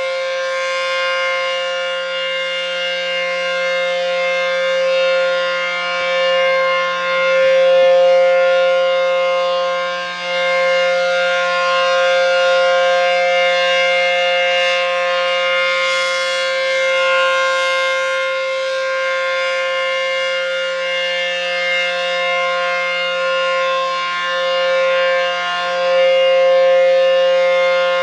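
ACA P-15 outdoor warning siren sounding a steady alert tone during its monthly test. The note is held as a chord of several pitches that does not rise or fall, while the loudness slowly swells and fades several times.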